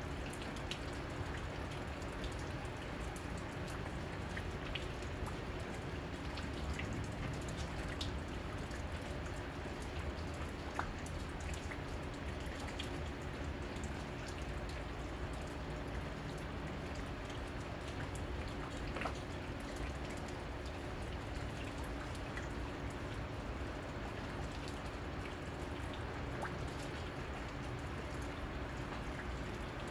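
Steady rain falling, with single drops ticking sharply now and then.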